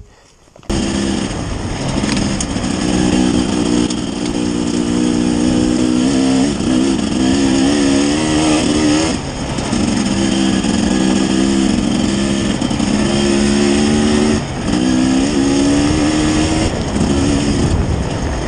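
Husqvarna TE 300 two-stroke enduro motorcycle being ridden, its engine pitch rising and falling with the throttle. The engine sound cuts in suddenly under a second in, and the rider briefly backs off the throttle twice.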